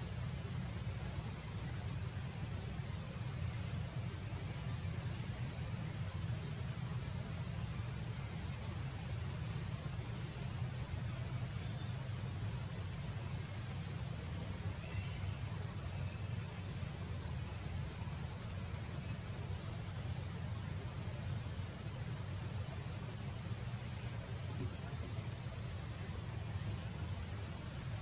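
Steady low rumble of outdoor background noise, with a short high-pitched chirp repeating evenly about once a second.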